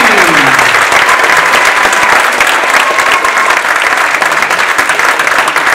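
Audience applauding: loud, dense, sustained clapping.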